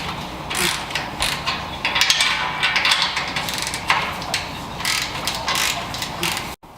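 Ratchet wrench clicking in quick, irregular runs while the header bolts are worked, cutting off suddenly near the end.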